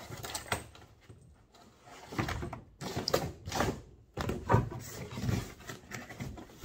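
Cardboard box and packaging handled on a tabletop: irregular scraping, rustling and several knocks as a metal detector's search coil is taken out of its box, with a louder thump at the end.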